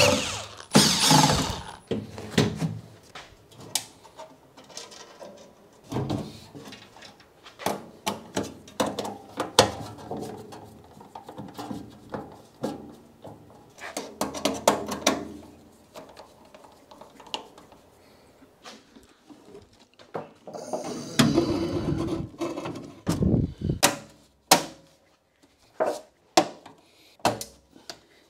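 Scattered clicks, knocks and scraping of tools, screws and fittings on a painted steel conduit box as it is fastened down and fitted out. There is a louder stretch of handling noise about three quarters through.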